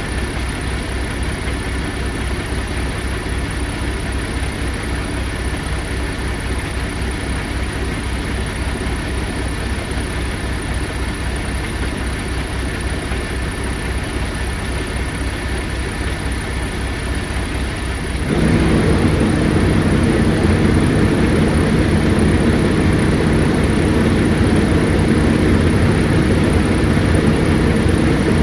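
Kenworth T680 semi truck's diesel engine idling with a steady low pulse, running to work the freshly recharged air conditioning. About eighteen seconds in, the sound suddenly steps up louder with a fuller hum and stays there.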